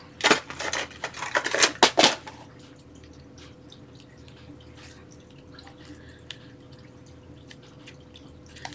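Sharp clicks and taps of a craft pick tool working at paper glued onto chipboard, about six in the first two seconds, then faint small scratches and ticks.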